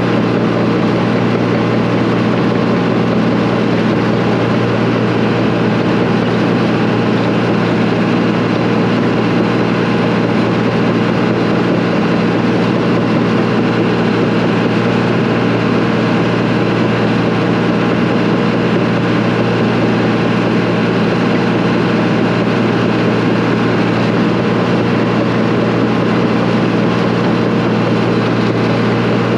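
Diesel engine of a heavy earthmoving machine running steadily at working speed, a constant loud drone with no change in pitch or level.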